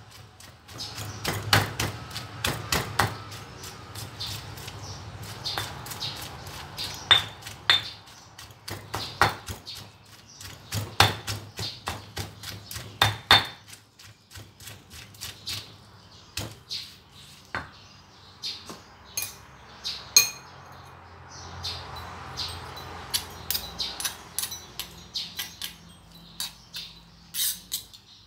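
Stone pestle pounding chili paste in a stone mortar: repeated dull knocks in uneven runs, heavier in the first half and lighter toward the end.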